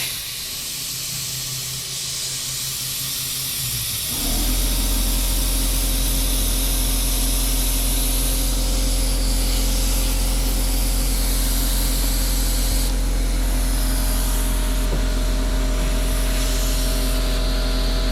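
Compressed air hissing steadily through an air chuck into a UTV tire with its valve core out, as it is inflated to seat the bead. About four seconds in, an electric air compressor starts and runs with a steady hum under the hiss.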